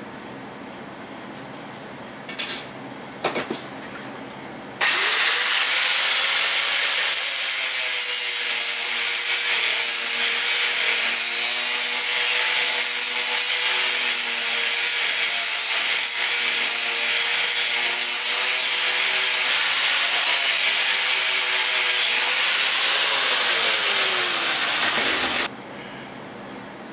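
Angle grinder grinding the face of a metal muffler flange clamped in a bench vise. It spins up about five seconds in, runs steadily for about twenty seconds, then is switched off and winds down; two brief knocks come before it starts.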